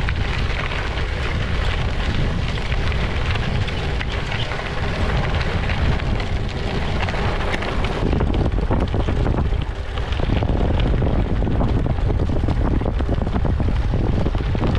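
Wind rumbling on the microphone over the crunch and rattle of a gravel bike's tyres rolling over a loose gravel and dirt road.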